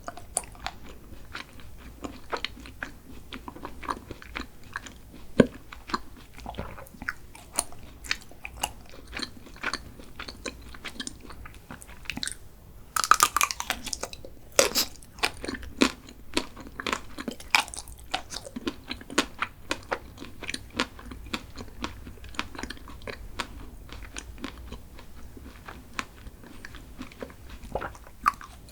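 Close-miked chewing and crunching of crunchy food, many small crisp crunches throughout with a louder, denser run of crunches a little before halfway.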